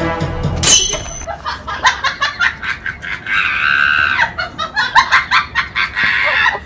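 Voices laughing and calling out, with a held high-pitched cry lasting about a second, a little past the middle.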